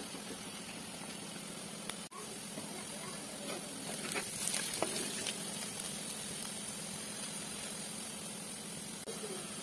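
Chopped onions sizzling steadily in hot oil in a clay pot. A wooden spatula stirs them and scrapes against the pot in a cluster of short scrapes and clicks about halfway through.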